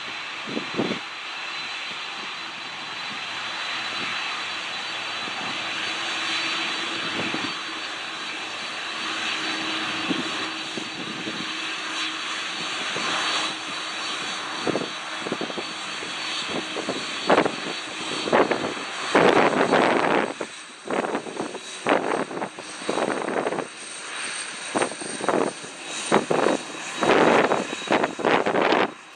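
Boeing 747 freighter's four jet engines running at low power with a steady whine as it taxis. From about two-thirds of the way in, as the jet turns its exhaust toward the microphone, the sound breaks into loud, irregular gusts of blast buffeting the microphone.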